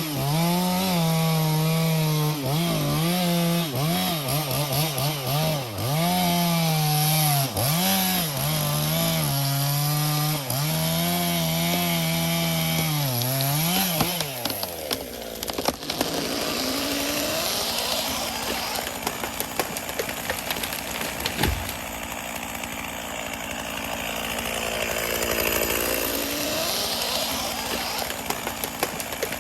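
Stihl chainsaw cutting into a cedar trunk at full throttle, its engine note repeatedly dipping under load and recovering. About halfway through the throttle is released and the engine note falls away. A single sharp crack follows a few seconds later.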